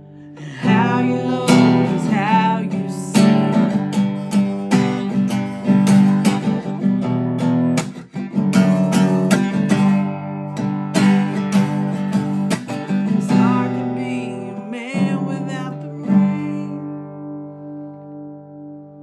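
Acoustic guitar strumming the closing chords of a song. About sixteen seconds in the strumming stops and the last chord rings on, fading away.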